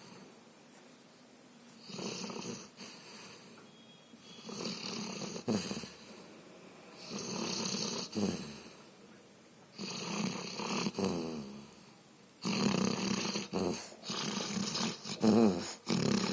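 A sleeping dog snoring, about six drawn-out breaths a couple of seconds apart, growing louder and wavering up and down in pitch toward the end.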